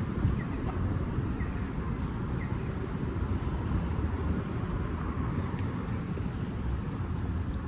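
City street traffic: a steady low rumble of passing engines and tyres. Faint short high chirps come about once a second in the first few seconds.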